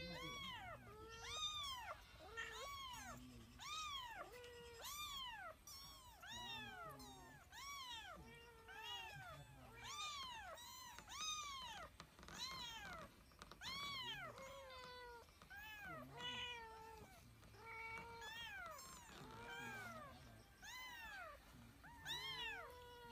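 Domestic cat meowing faintly over and over, about one meow a second, most calls rising and then falling in pitch.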